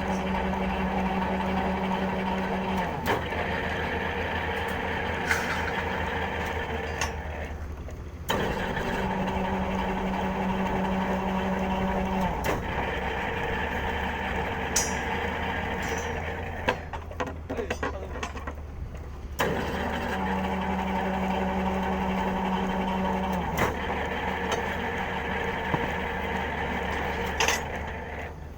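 Electric rebar bending machine running with a steady motor hum. A deeper tone comes in for stretches of about three seconds, three times, and there are occasional sharp clicks, typical of the machine cycling through bends.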